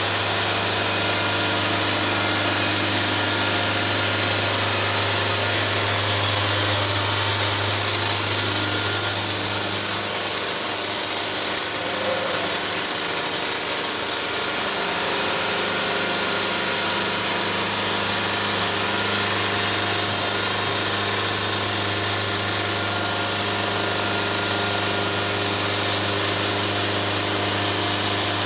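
Portable sawmill running steadily under load as its blade cuts through a log, an engine hum under a constant high hiss of cutting.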